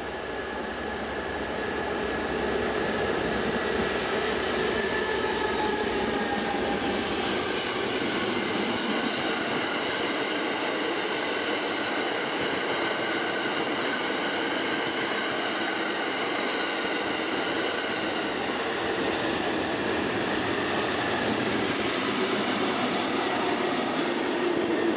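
A construction train hauled by a Class 232 diesel locomotive passing at speed. The noise builds over the first two seconds as the locomotive comes by, then settles into the steady rolling and clatter of its yellow hopper wagons, with thin high wheel-squeal tones over it.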